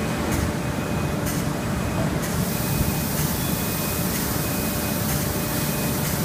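Steady machinery noise from an automated sand-core making line: a low rumble with faint steady tones, and a high hiss that grows louder about two seconds in.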